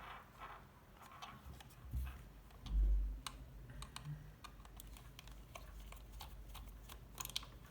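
Light scattered clicks and taps of a Razer Naga gaming mouse being handled with a small screwdriver as it is taken apart, with one dull thump about three seconds in.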